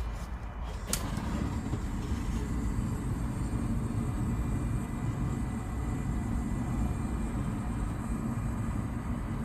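A sharp click about a second in, then a steady low roar as the fire is lit in a wood-burning stove and draws up the flue.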